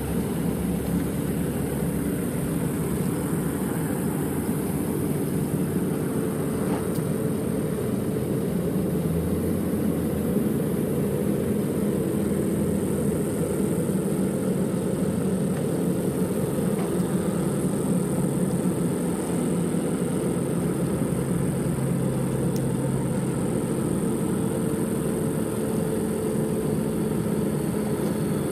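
Diesel engines of heavy-haul semi tractors running steadily, a low continuous drone with no break.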